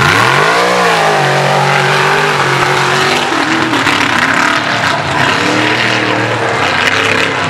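Mud racing rig's engine revving hard: its pitch climbs steeply in the first second, drops back, then holds at high revs and wavers as the rig runs down the mud bog track.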